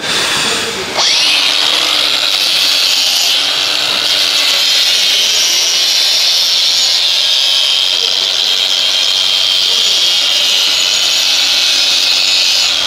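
Cordless grinder spinning up about a second in, then running steadily as its abrasive wheel grinds rust off the face of a front wheel hub, a high, even grinding that fades at the very end.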